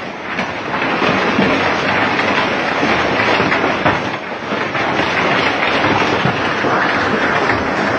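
Heavy rain mixed with hail pelting down: a steady, dense hiss of countless small impacts.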